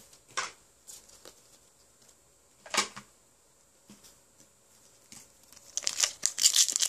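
Foil Pokémon booster-pack wrapper crinkling and tearing as it is ripped open by hand, starting near the end after a few scattered soft taps and rustles.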